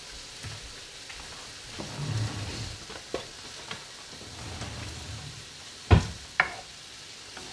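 Diced garlic sizzling in melted butter in a frying pan, a steady hiss, with a few sharp knocks, the loudest about six seconds in.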